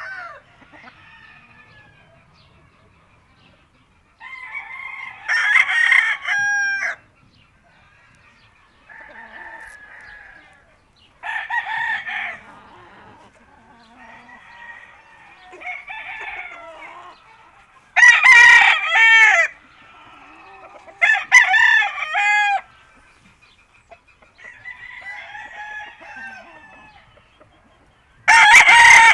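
Several roosters crowing one after another, a crow every few seconds. Some crows are close and loud, others fainter and farther off.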